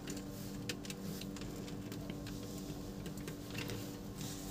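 Faint scattered clicks and taps of a screwdriver and wire being worked at a plastic switch-board screw terminal, over a steady low hum.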